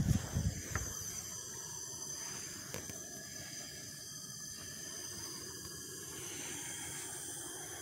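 Low bumps of a phone camera being handled during the first second, then a steady faint hiss with a single click about three seconds in.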